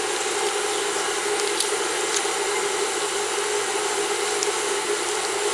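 Steady background hum and hiss, even in level, with a few faint ticks.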